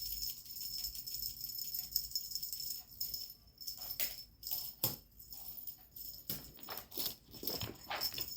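Irregular jingling and rattling in short strokes, a few louder ones in the second half.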